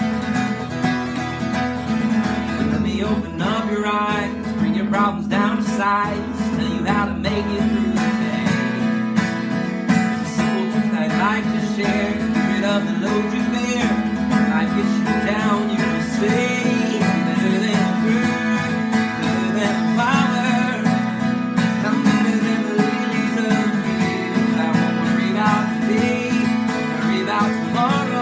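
Acoustic guitar played steadily, strummed chords over a low note that rings on throughout, with melody lines and slides picked above it.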